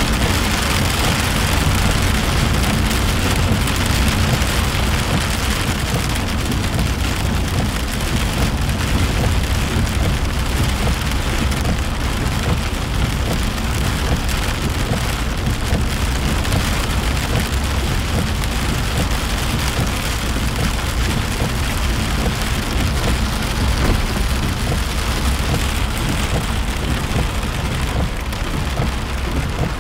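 Rain falling on a car's roof and windshield, heard from inside the moving car, with a steady low rumble of the car travelling on the wet road.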